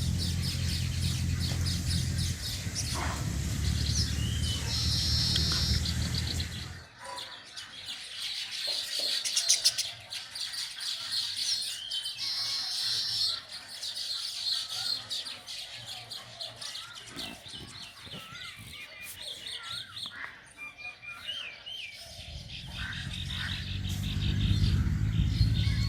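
Birds chirping and calling, with many short high whistled notes. A steady low hum runs under them for the first several seconds, drops out, and returns near the end.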